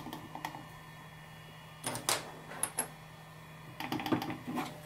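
Power button on a 3D-printed plastic case pressed by a finger, clicking in a few short groups of sharp clicks. The button clicks freely because the small printed tab that held it has been cut away.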